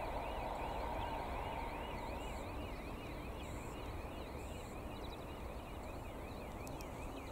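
Level-crossing warning signal sounding a continuous electronic warble that rises and falls about twice a second, over the fading rumble of a diesel-hauled passenger train moving away.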